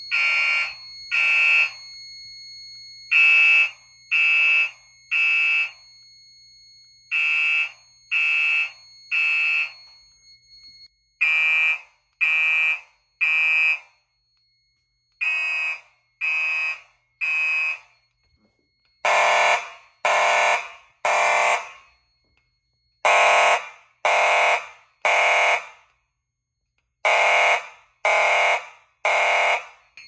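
Gentex fire alarm horn strobes sounding the temporal-3 evacuation code: three short horn blasts, a pause, repeating about every four seconds. About nineteen seconds in, the blasts become fuller and reach lower.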